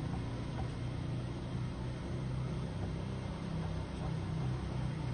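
Steady street ambience: a constant low hum under a noise haze, like traffic passing nearby, fading out at the very end.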